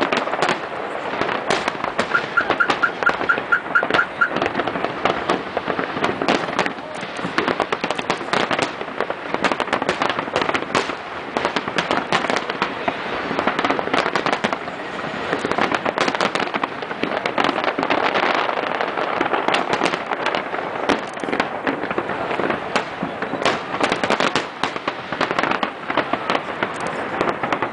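Aerial fireworks display: a continuous dense barrage of shell bursts, sharp bangs and crackling in rapid succession. A short run of quick high beeps sounds about two seconds in.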